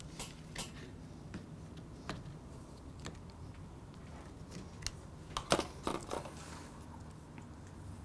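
Small clicks and taps of a compound bow's quiver mounting hardware being tightened and handled, with a short cluster of louder knocks about five and a half seconds in.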